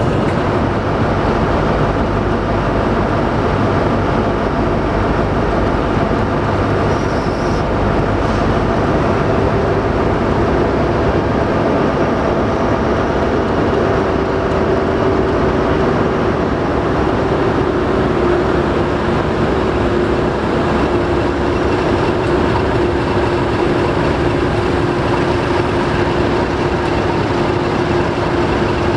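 Diesel locomotives standing with their engines idling: a Class 43 HST power car and a Class 50 side by side, running loud and steady. A steady humming tone comes in about a third of the way through and holds.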